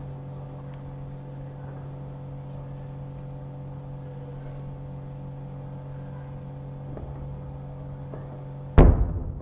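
A steady low hum runs throughout. Near the end comes one sudden loud explosion from the shelling, dying away over about half a second.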